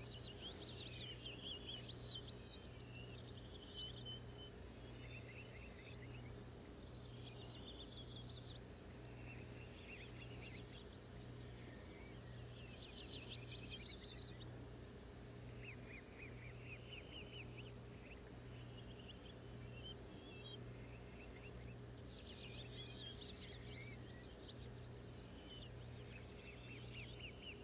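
Faint bird chirping and twittering in short, repeated bursts over a low steady hum.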